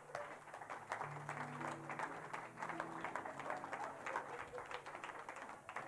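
A congregation clapping in applause, many scattered hand claps, over soft background music with long held chords.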